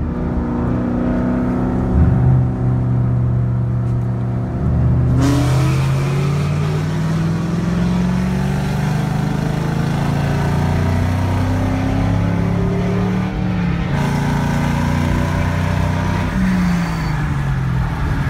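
Car engines accelerating hard on a highway during a roll race, heard from inside a following car: the engine note climbs in long rising sweeps, with wind and road hiss growing louder about five seconds in, and the pitch drops near the end.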